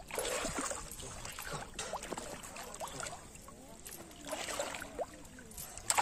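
Shallow river water splashing and sloshing around a person wading knee-deep, in several uneven bursts, the sharpest near the end.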